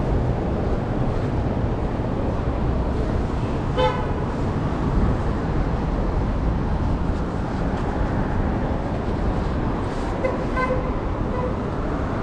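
City street traffic running steadily, with a short car horn toot about four seconds in and a few brief honks about ten seconds in.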